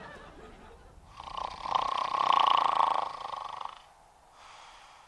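A man snoring: one long snore starting about a second in and lasting about two and a half seconds.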